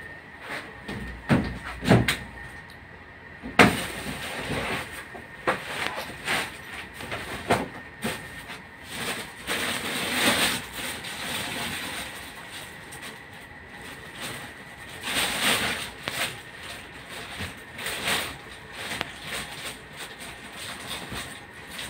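A baby monkey scrambling over a large plush teddy bear: irregular rustling of fur and bedding with soft bumps and knocks, a couple of sharper knocks a few seconds in.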